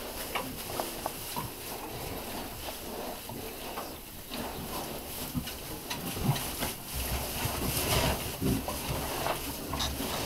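Several 16-week-old Hampshire x Landrace cross pigs grunting and snuffling as they root about in straw, in irregular short sounds that grow louder and heavier over the last few seconds.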